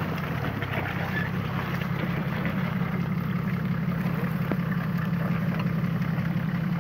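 Nissan Patrol's diesel engine running at steady low revs as the 4x4 crawls through deep mud.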